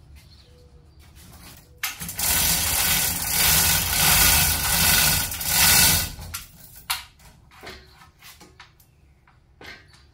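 A power tool running in one burst of about four seconds, then several short light knocks.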